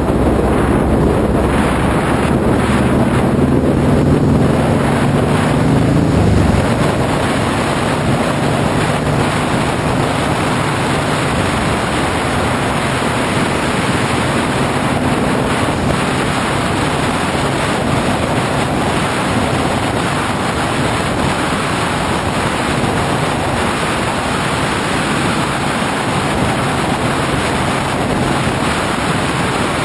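Wind noise rushing over the microphone of a moving vehicle driving along a road. For the first six seconds or so the engine's hum is heard under it, rising slightly in pitch, then the steady wind rush covers it.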